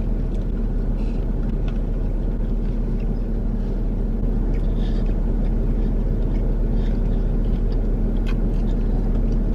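Steady low rumble of an idling car engine heard inside the cabin, with a few faint clicks over it.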